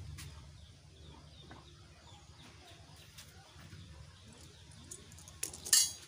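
A few sharp metal clinks and a short rattle near the end as a bearing and nut are fitted onto the threaded steel spindle of a wheel-polishing stand, over a faint low hum.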